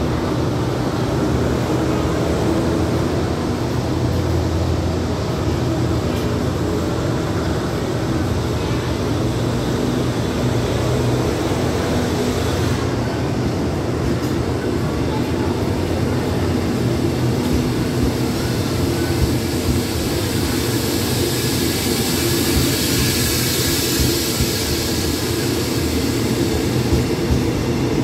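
Diesel-hauled passenger train at the platform, its Alsthom diesel-electric locomotive running with a steady low rumble. A hiss builds up in the second half as the train begins to pull away.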